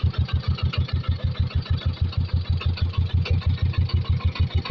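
Vehicle engine running at low speed, with an even beat of about eight low thumps a second.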